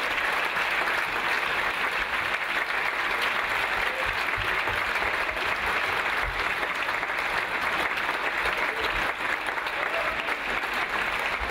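Steady applause from a seated audience, many hands clapping in an even, dense patter that echoes in a large sports hall.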